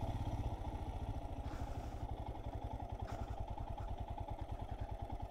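Royal Enfield Himalayan 411's single-cylinder engine running at low revs, a steady, even low beat.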